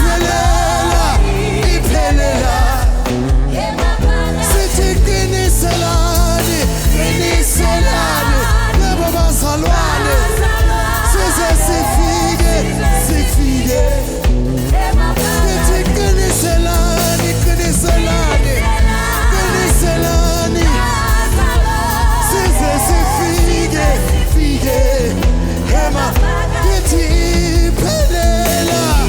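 Live gospel worship music: a band playing with voices singing sustained, wavering lines over a continuous low bass.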